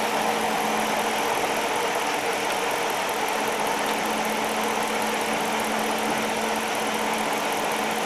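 Jeep Commander's 5.7-litre Hemi V8 idling steadily, heard with the hood open.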